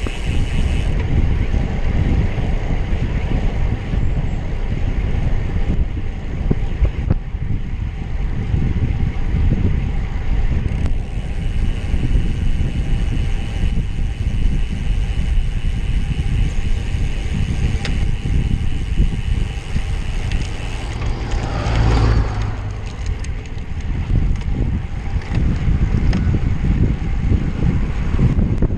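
Wind buffeting the microphone of a camera on a road bike being ridden at speed, a steady low rush with road and tyre noise. About two-thirds of the way through there is one brief louder whoosh.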